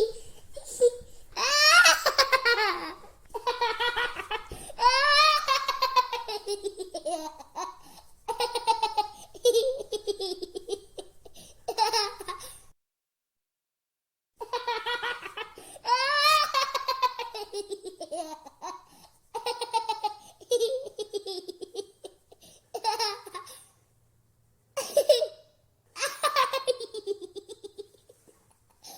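A male toddler laughing while being tickled: repeated fits of high-pitched belly laughter, each a second or two long and sliding down in pitch, with short breaks between them.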